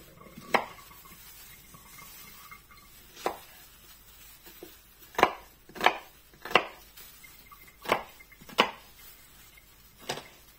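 Kitchen knife chopping the bulb of a green onion on a wooden cutting board: about eight separate knocks, irregularly spaced, most of them in the second half.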